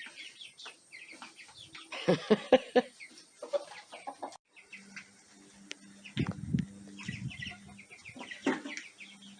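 Chickens clucking, with a loud burst of hen calls about two seconds in and more clucks around six to seven seconds in, over faint high chirping from small birds.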